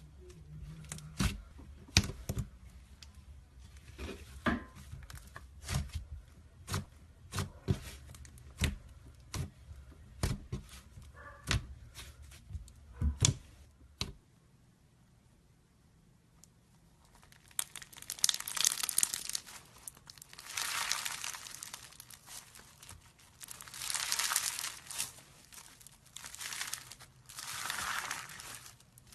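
Slime being squeezed and worked by hand: sharp, separate pops and clicks for the first half. After a short quiet gap, longer crackly, crinkling bursts follow.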